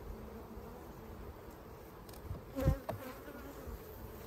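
Honey bees from an opened hive buzzing in a steady hum, with one brief thump partway through.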